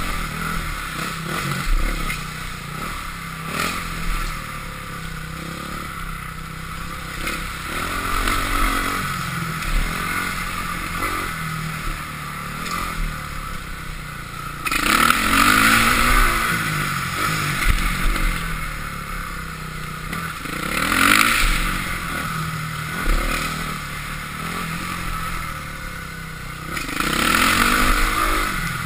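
2005 Honda CRF450R's single-cylinder four-stroke engine revving up and down through a motocross lap, rising and falling with the throttle. It runs loudest in hard pulls about halfway through, again a few seconds later, and near the end.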